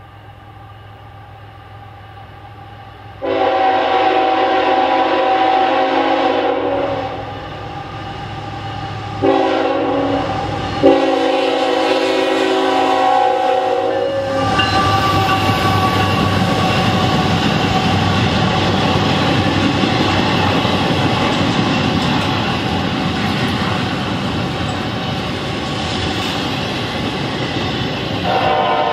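Locomotive horn, a Nathan K5HL on a CSX GE ET44AC, blowing for the grade crossing: a long blast, a short one and a final long one held until the locomotive reaches the crossing. The electronic crossing bell rings throughout. Then the long intermodal train rolls through with a steady rumble and wheel clatter, and a horn sounds again near the end.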